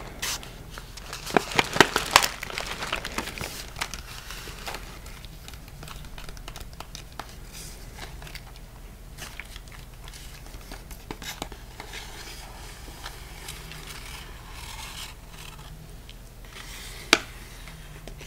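A plastic granola pouch crinkling and crackling as it is handled and scratched with fingernails close to the microphone. It is busiest in the first few seconds, then lighter scratching, with one loud click near the end.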